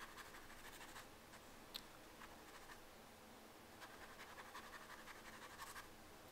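Faint scratchy strokes of a wet paintbrush scrubbing over a water-soluble wax pastel swatch on textured watercolour paper. The strokes come in two spells, in the first second and again from about four to six seconds in, with a single small tick a little under two seconds in.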